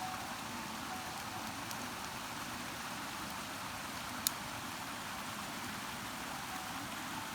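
Campfire crackling: a steady hiss with one sharp pop about four seconds in.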